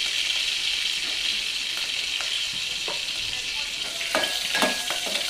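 Spices sizzling in hot oil in a steel pot: cumin and mustard seeds, chilli and asafoetida frying as the tempering for kadhi. About four seconds in, a metal spoon starts stirring, clinking and ringing against the pot.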